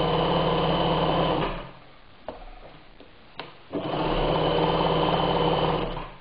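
Bernina 817 flatbed sewing machine with its 100-watt motor running at speed, stitching a decorative arc stitch through fabric. It runs in two bursts of about two seconds each, with a pause and two light clicks between them.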